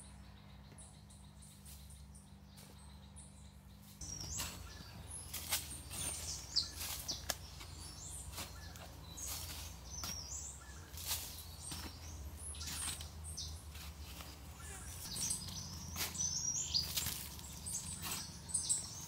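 A shovel digging into dry soil: irregular chops and scrapes of the blade into earth, starting about four seconds in, with birds chirping.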